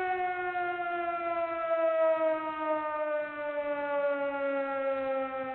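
A single long, steady tone with many overtones, sliding slowly and smoothly down in pitch.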